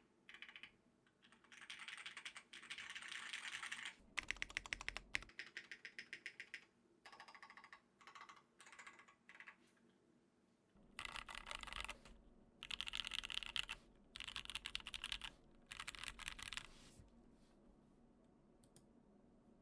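Custom 60% mechanical keyboard (Tofu60 case, aluminium plate) with lubed SP-Star Meteor Orange tactile switches being typed on in bursts with short pauses, including a fast, even run of keystrokes about four seconds in. The typing thins out near the end.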